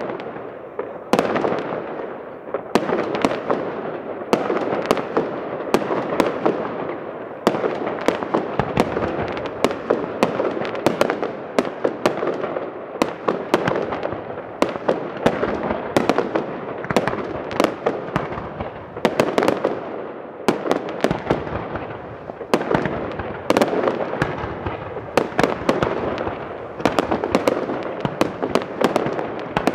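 Fireworks display: aerial shells bursting in a steady barrage, with sharp bangs at irregular intervals, about one or two a second, over a continuous crackling din.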